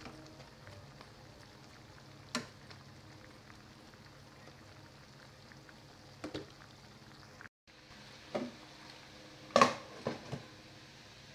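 Pork steak and onions simmering faintly in a pan, with a few light clicks. Near the end a glass pot lid is set down onto the pan with a clatter.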